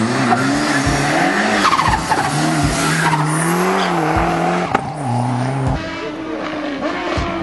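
Competition car's engine running hard through a slalom course, its pitch rising and falling with throttle and gear changes, with a sharp crack about halfway through.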